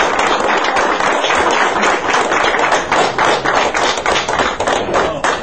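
Audience applauding: sharp, distinct claps coming fairly evenly, several a second.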